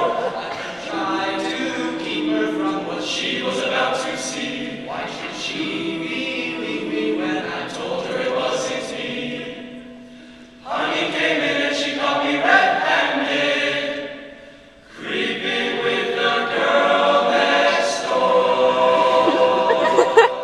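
Men's a cappella group singing held close-harmony chords in barbershop style. The singing breaks off briefly twice, about ten and fifteen seconds in.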